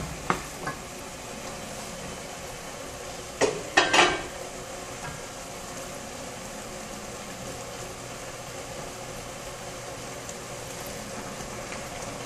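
A pot of tomatillo sauce sizzling steadily on the stove after hot broth has been added. Brief utensil scrapes against the pot about three and a half and four seconds in.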